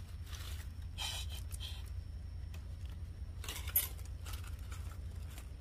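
A few short scraping and clinking handling noises over a steady low rumble.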